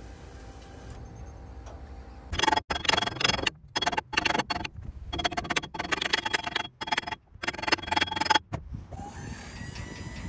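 A hammer striking the steel dump-bed bracket and pin in a run of blows lasting about six seconds, the steel ringing with each hit as the bracket is knocked round into position.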